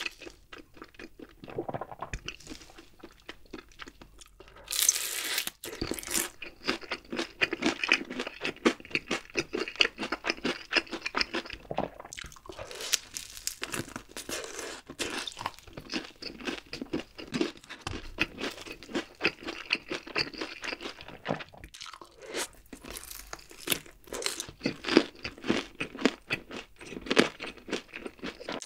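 Close-miked crunching and chewing of a crispy, honey-glazed fried chicken drumstick. There is a loud bite-crunch about five seconds in, then dense, irregular crunches and wet chewing.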